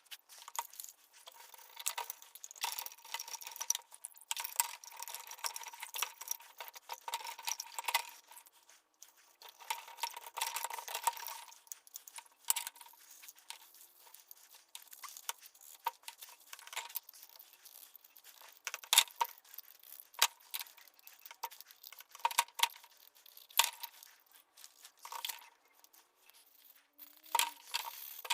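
Small metal parts and hand tools clinking, clicking and scraping irregularly, with a stretch of scraping in the first dozen seconds.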